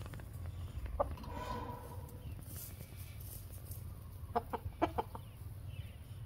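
Rooster clucking: one short call about a second in, then a quick run of about five clucks a little past the middle, over a low steady rumble.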